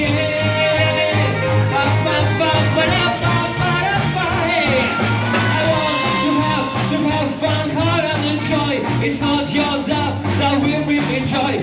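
A live band playing: a man singing into a microphone over saxophone, upright double bass, electric guitar, keyboard and drums.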